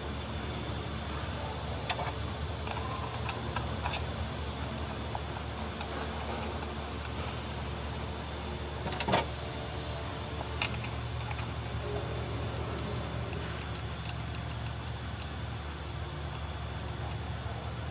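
Small clicks and taps of a new automatic-transmission filter being handled and pressed onto the valve body, with a sharper click about nine seconds in and another shortly after, over a steady low hum.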